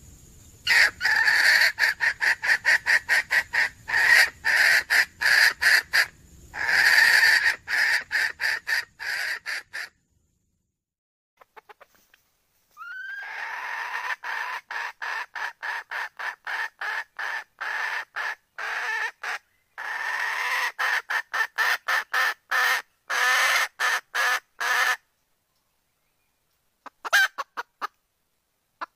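Red junglefowl hen clucking in rapid, even runs of short notes, nearly four a second, in two long bouts with a pause between them. This is the call a wild hen gives to draw cocks to her.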